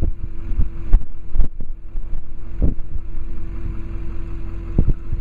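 Wind buffeting the microphone: a loud low rumble broken by irregular thumps, over a steady low hum.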